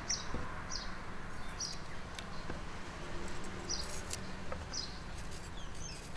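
Short, high, downward chirps repeating irregularly about once a second, typical of a small bird, over a steady low rumble.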